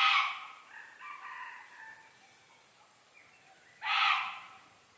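Two loud animal calls about four seconds apart, each about half a second long, with a fainter call between them.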